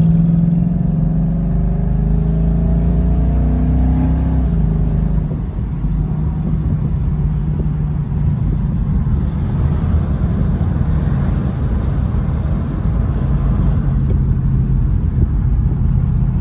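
2016 Ford Mustang GT's 5.0 L Coyote V8 through its custom Borla exhaust, heard from inside the cabin: it pulls with rising pitch for about four seconds, then eases off and settles into a steady run at cruising speed, with road noise.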